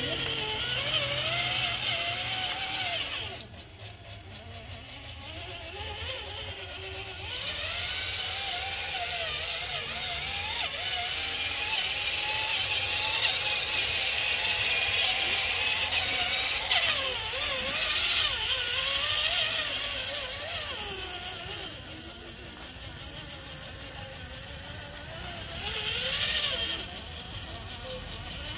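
Electric motors and gearing of radio-controlled scale crawler trucks whining, the pitch rising and falling with the throttle. The sound drops away about three seconds in and builds again a few seconds later.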